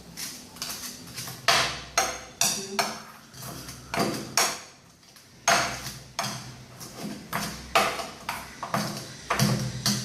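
Pestle pounding garlic and red chilies in a mortar: repeated sharp knocks, roughly two a second and unevenly spaced, each with a brief ring.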